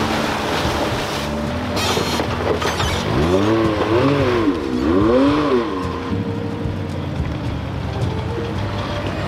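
Off-road vehicle engines running through a rocky creek, with water splashing from the tires about two seconds in. Around the middle an engine revs up and back down twice, its pitch rising and falling.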